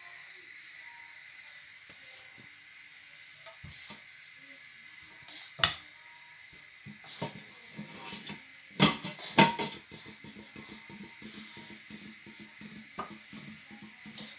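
Pots and pans knocking and clanking as a small child handles a stainless-steel pot and a frying pan. There are a few scattered knocks and then a cluster of sharp, loud clanks a little past the middle.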